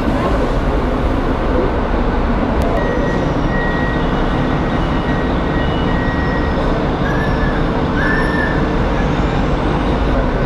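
Bus diesel engine idling close by: a steady low rumble, with a few faint high tones over it in the middle.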